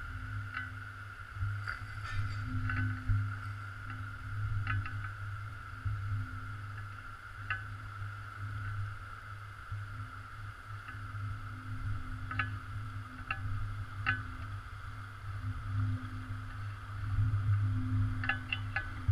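Underwater sound picked up by a GoPro in its waterproof housing: a steady low rumble with a wavering hum and scattered light clicks.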